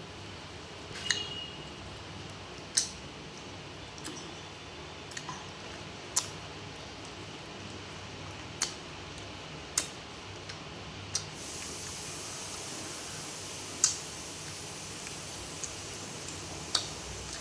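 Close-up eating sounds: sharp, wet mouth smacks and clicks while chewing, one every second or two, over a faint steady hiss.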